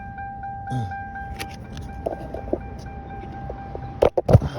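A car's door-open warning chime sounding as a steady electronic tone, with small clicks and rattles of things being handled inside the car. The chime stops a little before four seconds in, followed by a few loud knocks.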